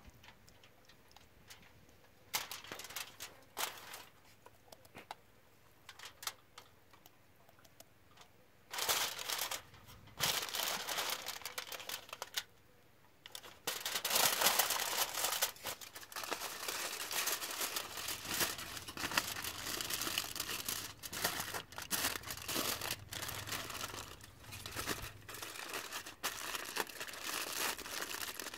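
Aluminium foil crinkling as a whole raw chicken is wrapped in it and folded by hand: scattered crackles at first, then steady, louder crinkling from about nine seconds in.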